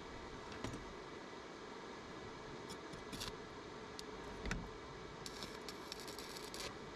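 Scattered small clicks and taps with one heavier knock about four and a half seconds in, then a short run of rapid crackling clicks near the end, over a steady background hiss.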